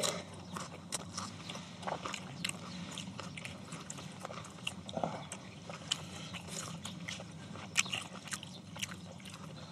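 Close-miked chewing and crunching of lettuce wraps of stir-fried pork, with many irregular sharp clicks.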